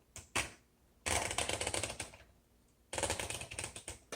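1957 Olympia SM3 manual typewriter being typed on: a single keystroke, then two quick runs of rapid type-bar strikes, each about a second long, separated by a short pause.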